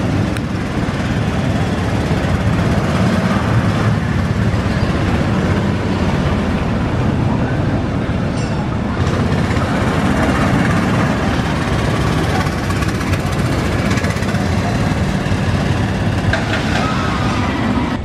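Zamperla motorbike coaster train running on its steel track: a steady low rumble with no breaks, a little louder from about nine seconds in.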